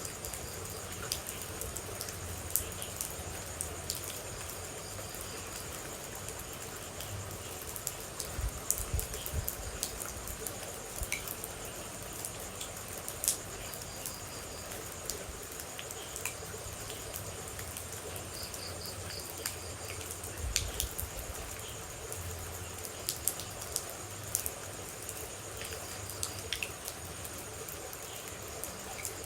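Steady rain with scattered water drops landing as sharp ticks, over a constant high insect trill and a few short chirps.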